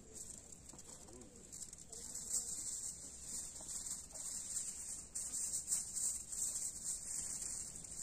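Aluminium foil crinkling and rustling as it is pulled from the roll and wrapped around ears of corn, louder from about two seconds in.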